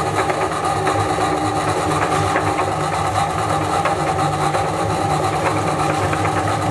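Belt-driven meat grinder running steadily under a motor, grinding biscuits into crumbs, with scattered crunching clicks from the biscuits breaking up.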